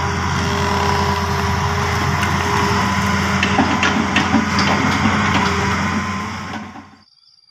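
Hitachi 210F excavator's engine running steadily while its bucket works oil palm trunks, with a few sharp knocks of wood around the middle. The sound fades out about a second before the end.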